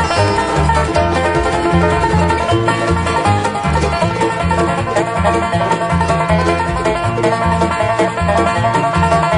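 Instrumental bluegrass-style music led by a banjo, over a steady bass line.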